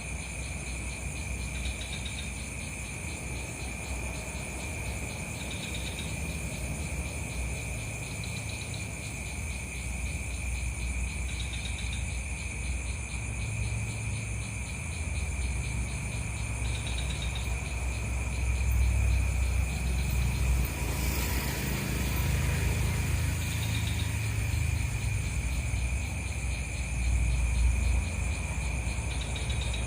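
Crickets and other insects trilling steadily, with a higher chirp repeating every two to three seconds. A low rumble grows louder through the second half, with a brief swish about two-thirds of the way in.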